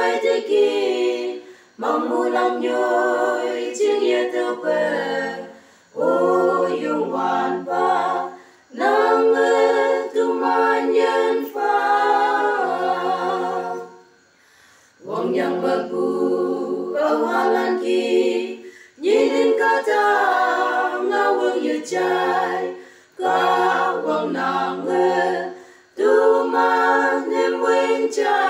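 Unaccompanied voices singing together in harmony, a cappella. The song moves in phrases of two to four seconds with short breaks between them and a longer break about halfway through.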